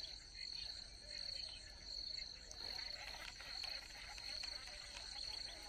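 Insects trilling: a high, steady trill that pulses on and off over and over.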